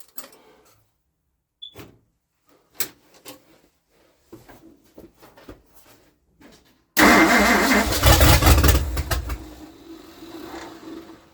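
Faint clicks and knocks, then about seven seconds in a 1960 Ford 360 FE V8 with tri-power carburetors is cranked and catches, running roughly for a couple of seconds before fading out. It will not keep running without fuel poured in by hand.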